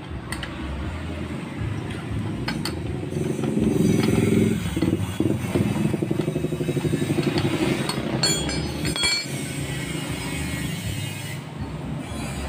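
A motorcycle engine running steadily, louder about four to eight seconds in, with a spanner clinking against the centre nut of a scooter's CVT clutch assembly as it is worked loose. The clinks come in a ringing cluster about eight to nine seconds in.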